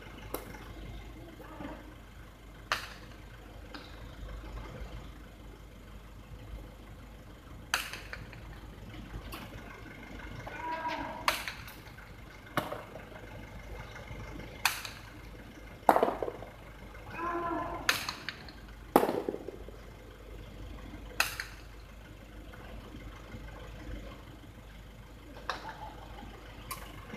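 Sharp cracks of a hard jai alai ball (pelota) striking the fronton wall and court during a rally, about a dozen irregularly spaced impacts, the loudest two a little past halfway and about two-thirds in. Short voices call out twice.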